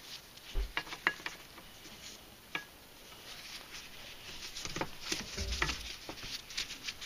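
Scattered light metallic clicks and knocks as a bench vise handle is turned, clamping an MTD disc-brake caliper to press out a stuck brake piston.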